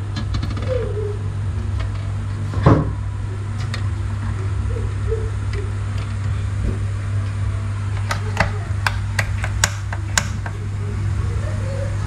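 Eggs are set into a metal pot of water, with a few light clinks and one thud about three seconds in, over a steady low hum. Near the end comes a quick run of about eight sharp clicks, typical of a gas stove's spark igniter clicking before the burner lights.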